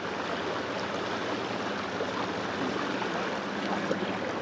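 Shallow river current flowing steadily, an even rushing of water with no breaks.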